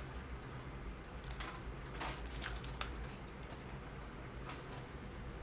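Toy packaging being handled and opened: a few soft, scattered crinkles and clicks of plastic and wrapping.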